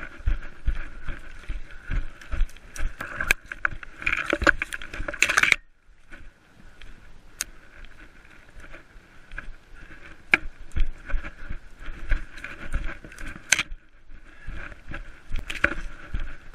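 Footsteps of a runner moving through forest undergrowth, with leaves and twigs crackling and rustling underfoot and against the body. The steps suddenly go softer about five and a half seconds in, then grow louder again near the end.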